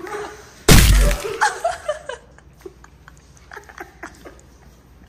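A sudden loud smack with a heavy low thump about a second in, dying away within half a second, followed by scattered giggles.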